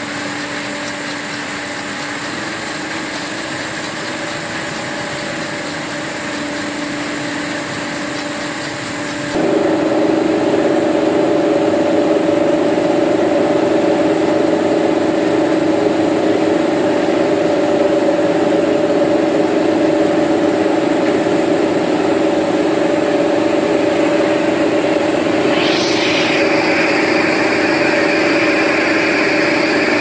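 Peanut drum washing machine running: a steady motor hum with the hiss of water spraying from its nozzles onto peanuts in the rotating perforated drum. It grows louder about a third of the way in, and a higher whine changes pitch near the end.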